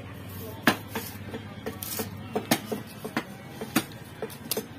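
Heavy fish-cutting knife striking a wooden chopping block in quick, irregular knocks, about two or three a second, as it chops through a large fish.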